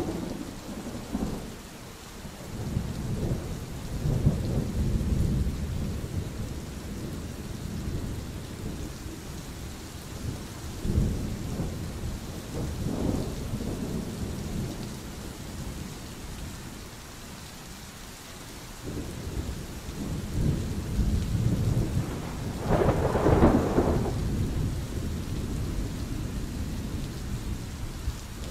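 Steady rain with thunder rumbling low and rolling again and again, and one louder, sharper peal about three quarters of the way through.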